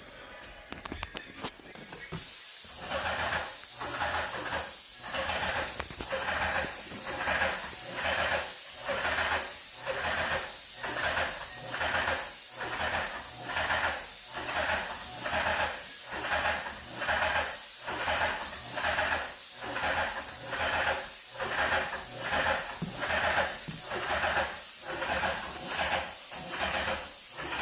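Airless paint sprayer spraying a ceiling through a pole gun. The spray starts suddenly about two seconds in, then hisses steadily with an even pulse about once a second.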